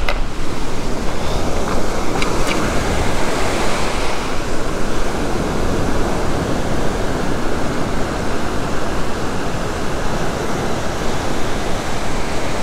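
Ocean surf breaking and washing through the shallows, a steady rushing noise.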